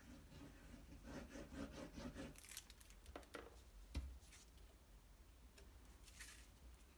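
Faint paper-handling sounds: a glue applicator rubbing and scraping over a cardstock panel, brief paper rustles, a few light clicks, and a soft thump about four seconds in.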